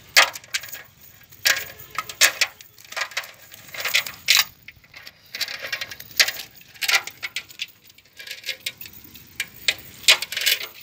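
Irregular sharp clicks and taps as live shrimp flick and jump in a basin while a cast net is picked through, the net's mesh and weights rattling now and then.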